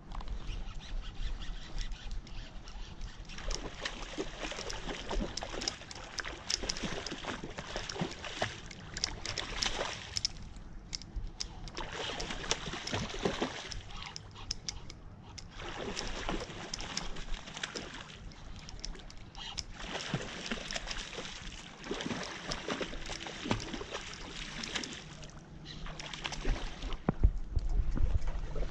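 A hooked salmon splashing and thrashing at the surface in bursts with short pauses. Near the end there is louder rubbing and knocking as the landing net is handled.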